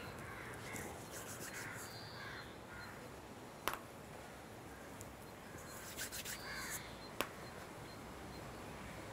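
Faint outdoor ambience with birds calling in the background, and two sharp clicks about three and a half seconds apart, with a short run of small taps between them.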